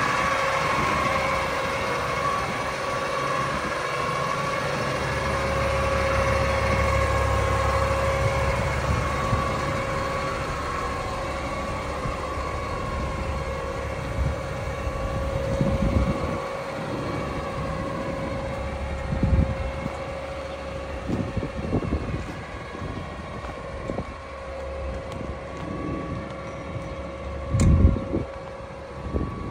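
Autocar McNeilus garbage truck idling with a steady hydraulic whine. In the second half come a few heavy metal bangs and clunks from the truck's cart-tipping gear and carts, the loudest near the end.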